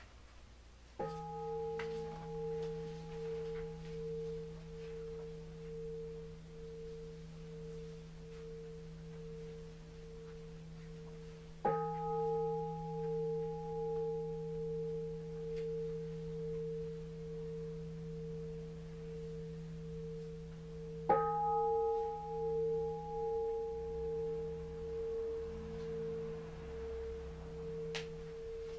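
A large bowl bell is struck three times, about ten seconds apart. Each strike rings on with a wavering hum that fades slowly.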